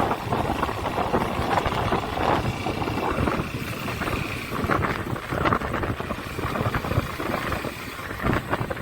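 Honda Shine motorcycle's single-cylinder engine running while riding, mixed with wind buffeting the microphone.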